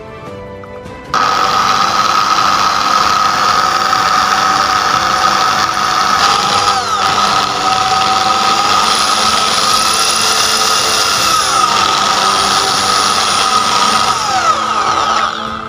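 Power drill running with a twist drill bit boring into a black metal plate: a steady whine whose pitch sags and recovers a few times as the bit bites. It starts about a second in and stops just before the end.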